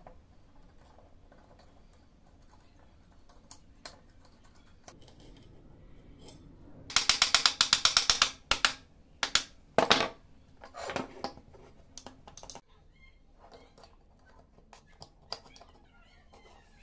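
Small hammer tapping a pin into an air stapler's metal body: a quick run of about a dozen light taps, then several single sharper strikes.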